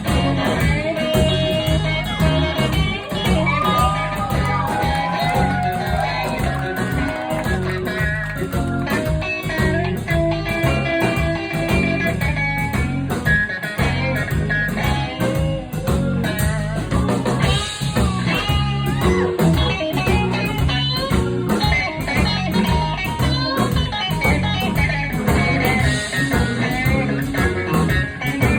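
Live blues band playing a shuffle groove, with lead guitar playing lines full of string bends over a steady, repeating bass line and drums.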